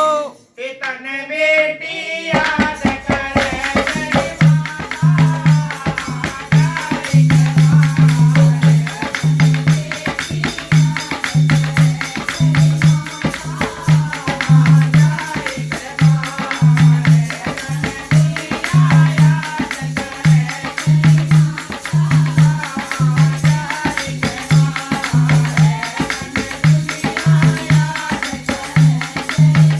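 Instrumental intro of a Haryanvi folk song: a short melodic lead-in, then from about two seconds in a steady repeating deep drum beat with jingling, tambourine-like percussion under a wavering melody.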